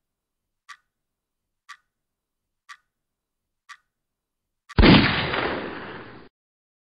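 A clock ticking once a second, five ticks, then a single loud gunshot about five seconds in, its echo dying away for a second and a half before cutting off abruptly.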